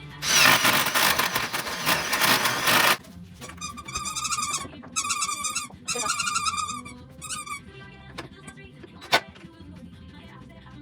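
Power drill with a spade bit boring a hinge hole into a wooden cabinet door: a loud, harsh noise for about two and a half seconds. It is followed by several short bursts of a high, wavering squeal, then a single sharp click near the end.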